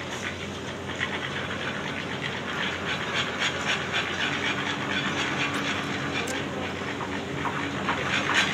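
A steady mechanical hum with a hiss and a rapid clatter over it; a second, higher hum joins about four seconds in.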